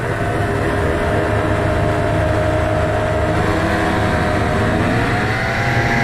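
50cc two-stroke Piaggio scooters accelerating hard from a standstill, their engines running at a steady high pitch. The pitch climbs about five seconds in.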